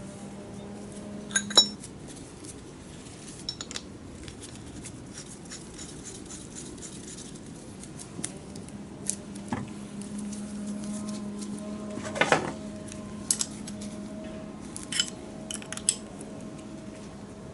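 Metal tools and small metal parts clinking and clicking against each other, scattered light knocks with a brief ring, the loudest about a second and a half in and again near twelve seconds, over a steady low hum.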